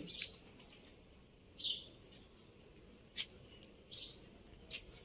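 A bird chirping: three short high chirps about a second and a half apart, with a couple of sharp clicks between them.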